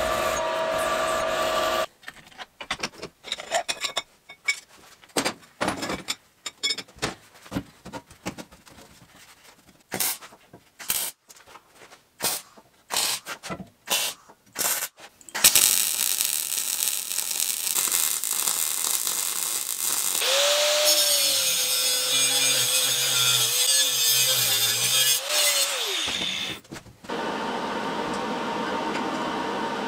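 Metalworking in a workshop: a drill press boring into steel at first, then a long run of short, irregular MIG welding bursts. About halfway through, a loud steady machine noise takes over; a motor tone rises in it and winds down as it stops, shortly before the end.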